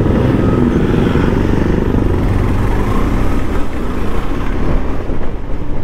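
KTM Adventure motorcycle's single-cylinder engine running steadily at low road speed, heard from the rider's seat.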